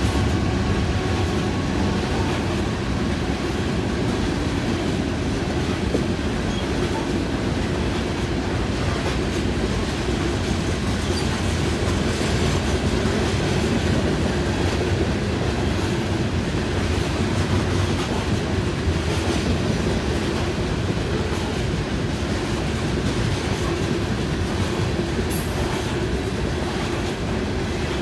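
Loaded coal train's hopper cars rolling steadily past: a continuous rumble of steel wheels on rail, with clicking over the rail joints.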